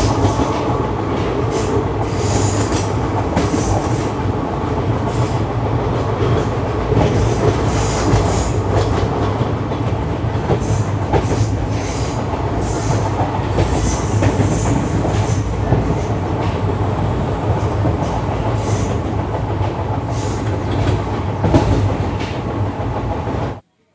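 Indian Railways express train running along the track, heard from aboard a passenger coach: a steady loud rumble of wheels on rail with knocks over the rail joints and frequent short, high wheel squeals. The sound cuts off suddenly near the end.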